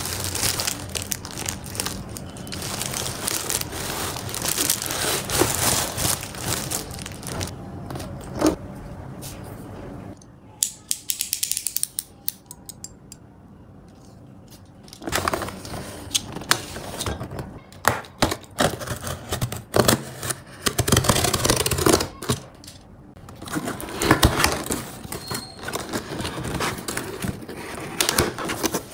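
Unboxing handling noise: a carrier bag and a cardboard laptop box rustling and scraping, with a quick run of clicks about ten seconds in as a snap-off utility knife's blade is pushed out. From about fifteen seconds, the knife cutting through the box tape and cardboard flaps and inner packaging being scraped and pulled apart.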